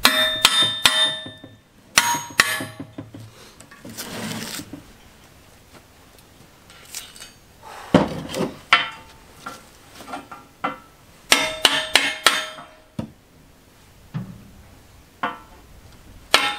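Hammer blows on steel, driving tight pins out of a Titan backhoe thumb: short groups of sharp strikes that ring metallically, with pauses between.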